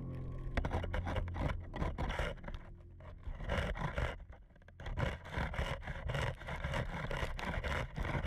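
Irregular scraping strokes of marine growth being scraped off a boat's hull, fading in level about halfway through before picking up again. Faint background music is heard at the start.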